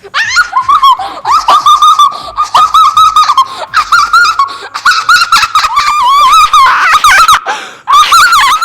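A child squealing and shrieking with laughter in rapid, very high-pitched bursts, the ticklish reaction to fish nibbling at feet dipped in a fish spa pool.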